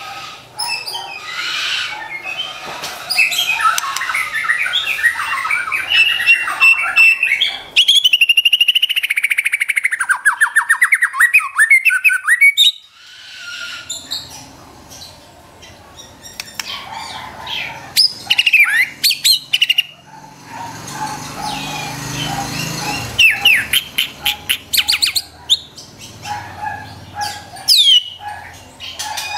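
White-rumped shama (murai batu) singing a varied song of quick chattering runs. About a third of the way in comes a long, fast series of loud notes, and clear whistled notes sweep up and down in the second half.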